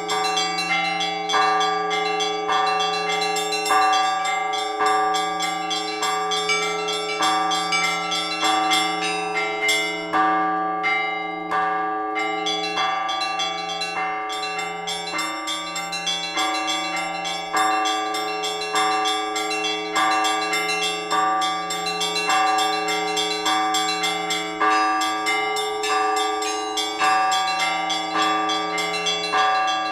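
Orthodox church bells rung together in a peal: quick, even strikes of several small high-pitched bells over regular strokes of middle bells, with a large bell's low hum ringing on beneath. About ten seconds in, the small bells pause briefly, then resume.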